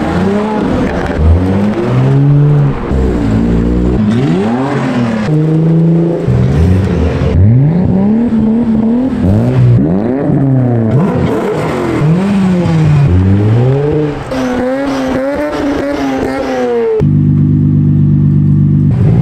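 Several sports cars' engines revving one after another as they pull away, each blip of the throttle rising and falling in pitch. Among them are a Toyota GR Supra, a Nissan S14 and a Mazda RX-8 rotary. Near the end one engine holds a steady pitch.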